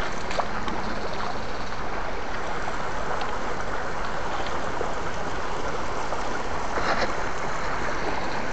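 Shallow stream water running over rocks, a steady rushing hiss.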